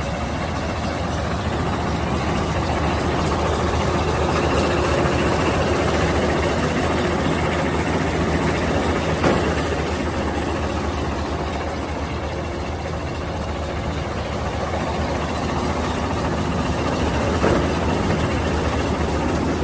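Crawler rice combine harvester running steadily, its engine droning at a constant pitch, with a short knock about nine seconds in and another near the end.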